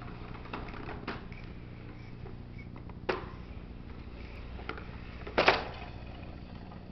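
A plastic push-along baby walker toy clicking and clattering as it is pushed over carpet: a few sharp knocks, with the loudest clatter about five and a half seconds in. A faint steady low hum runs underneath.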